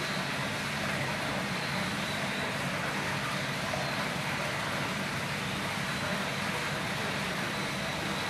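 Steady background noise, a low hum under an even hiss, holding level throughout.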